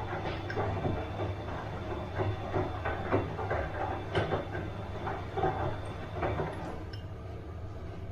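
Bosch washing machine in its wash cycle: the drum turns with water sloshing and laundry tumbling in irregular thumps over a steady motor hum. The thumps stop about seven seconds in, leaving the hum.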